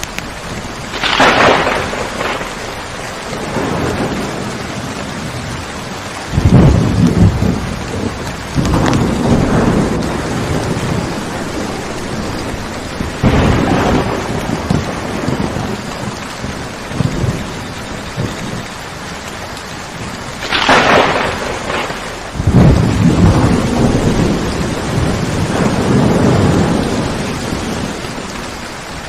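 Steady rainfall in a thunderstorm. Thunder cracks sharply about a second in and again about two-thirds of the way through, and a few seconds after each crack the thunder rolls on as a low rumble. A weaker crack comes near the middle.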